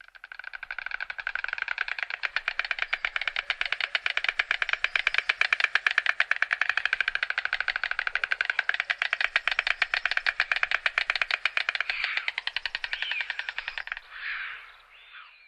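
White stork bill-clattering: the bill snapped open and shut in a fast, even rattle of clacks lasting about twelve seconds. Near the end it turns ragged and breaks into two short separate rattles.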